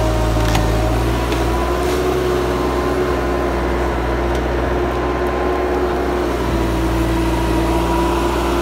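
Skid steer engine running steadily at a constant speed, with a steady tone hanging over the low drone and a few light clicks in the first half.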